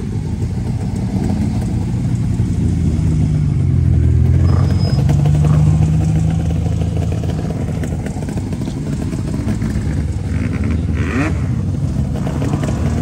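Nissan Skyline R32 GT-R's twin-turbo straight-six running as the car rolls slowly past at low revs. The engine note swells to its loudest about four to six seconds in, then eases off.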